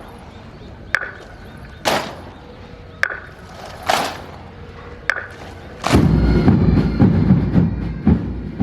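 Rifle shots fired in a salute, one sharp crack after another roughly every second, some with a short metallic ring. About six seconds in, a dense rumbling clatter full of quick cracks takes over.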